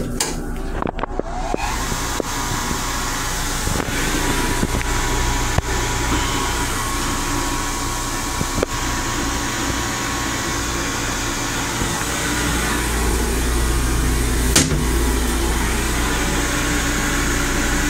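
Steady hum and rushing noise inside a Metro-North Comet IV rail car's restroom, from its ventilation and running gear, with a deep rumble beneath. A few light clicks and knocks come through, and the rumble grows a little louder after about twelve seconds.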